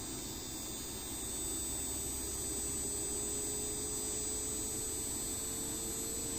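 LG inverter air conditioner compressor running with a steady hum, a faint tone in it slowly rising in pitch as the inverter speeds the compressor up; the sound grows a little louder about a second in.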